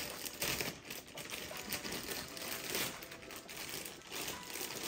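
Clear plastic bag crinkling and rustling in the hands as it is pulled off a packaged figure.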